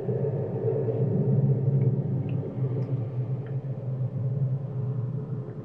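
A steady low rumbling drone with a few faint ticks.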